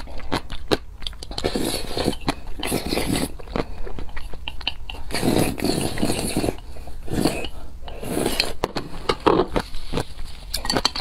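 Close-miked eating sounds: noodles slurped up with wet mouth clicks, then gulps of broth drunk straight from a tipped bowl in several long pulls.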